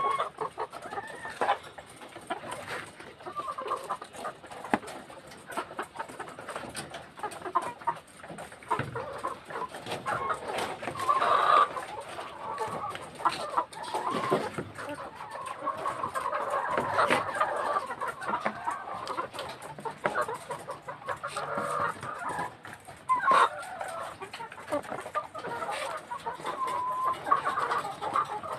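A flock of caged white laying hens clucking continuously, many birds calling over one another, with frequent sharp clicks and taps mixed in.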